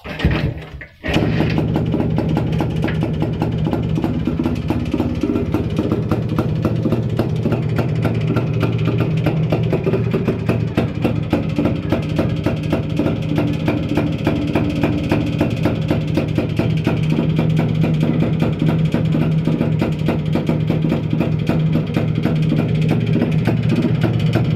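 Two-stroke engine of a Jawa/Yezdi motorcycle catching about a second in after a short, uneven burst of start-up noise, then running steadily at idle.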